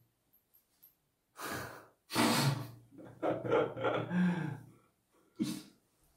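A person's breathy vocal sounds: a sharp exhalation, then a longer breathy stretch with some voice in it, and a short puff of breath near the end.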